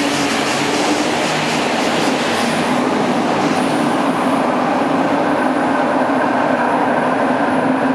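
Osaka subway 70 series linear-motor train running out of the station into the tunnel: a steady rumble of the running train with a steady low hum under it.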